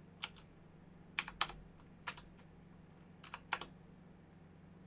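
Computer keyboard keys pressed a handful of times at uneven intervals, typing new values into settings fields, over a faint steady low hum.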